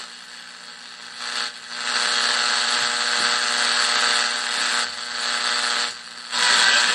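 Static hiss from a tiny AA5 AC/DC AM tube radio's speaker, with a faint steady hum under it, tuned near a weak station. The hiss swells about a second in and dips out briefly three times as the antenna wiring is handled.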